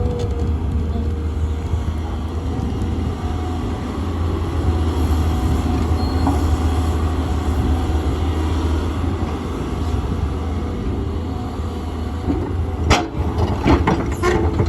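Excavator's diesel engine running steadily under load with a low rumble, and a few sharp clanks near the end, like the bucket striking rock.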